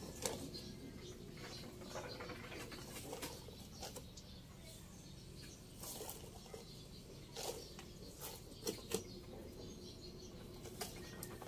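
Faint, irregular rustling and small crackles of soil and the plastic nursery pot being handled around the base of a freshly transplanted sapling, with a few sharper clicks near the start and again near the end.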